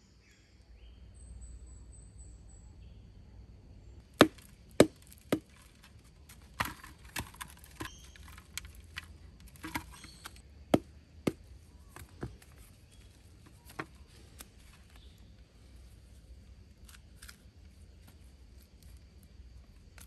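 A hand-held stone striking rounded lumps of ore held over a clay pot, crushing them: about a dozen sharp knocks at an irregular pace, the first three the loudest.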